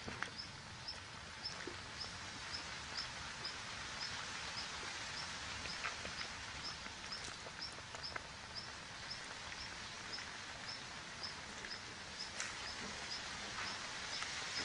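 Outdoor ambience: a short, high chirp repeating evenly about three times a second over a steady background hiss, with a few faint scattered clicks.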